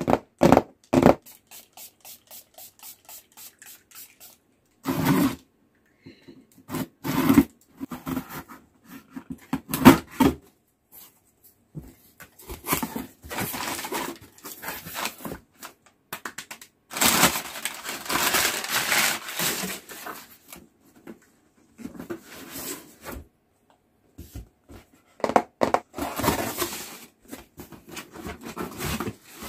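A cardboard shipping box being opened by hand: a quick run of light taps of long fingernails on the cardboard, about three a second, then irregular bursts of cardboard flaps scraping and crumpled paper packing rustling as the hands dig inside.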